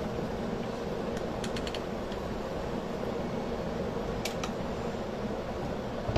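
Steady whirring hum like an electric fan, with a few faint light clicks about a second in and again about four seconds in.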